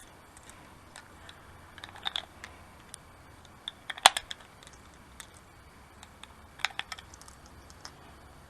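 Scattered small clicks and taps of handling a rifle and its gear at the shooting bench, irregular and light, with one sharper click about four seconds in.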